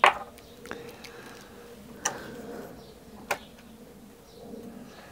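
Small handling clicks and taps from a metal tin of Bisley air rifle pellets being opened and pellets picked out: four sharp clicks, the loudest right at the start, then one about every second.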